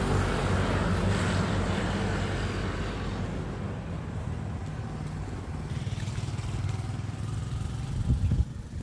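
A motor vehicle engine running with a steady low hum that slowly fades, a few low bumps near the end, then the sound drops away.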